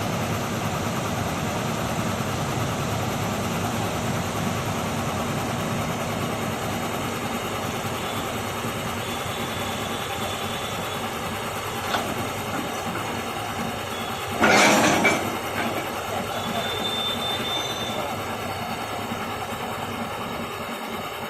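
Heavy diesel machinery running steadily with a low rumble, with a faint high squeal twice and one short, loud burst of noisy hiss or scrape about fourteen seconds in.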